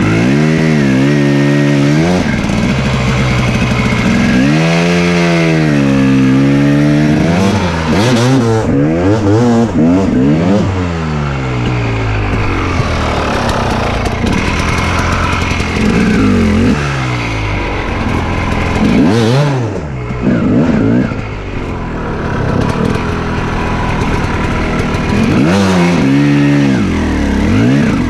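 Enduro dirt bike engine revved up and down over and over, its pitch rising and falling every second or two, as the bike is worked slowly over rough forest ground.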